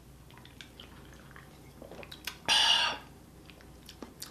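Quiet sips and swallows from a can of sparkling water, then, about two and a half seconds in, a short loud 'ahh' of satisfaction after the drink.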